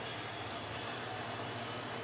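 Steady background hiss with a low hum: room noise, with no distinct sound events.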